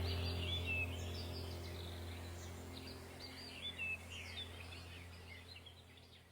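Small songbirds chirping and twittering in quick, high notes over a low steady drone, the whole sound gradually fading out to near silence near the end.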